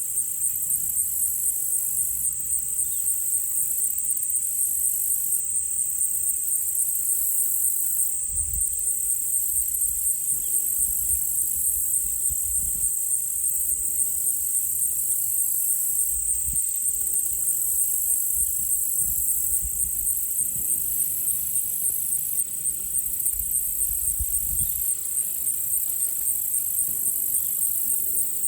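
A chorus of insects, crickets or similar, keeping up a steady, high, rapidly pulsing trill, with a few low rumbles underneath.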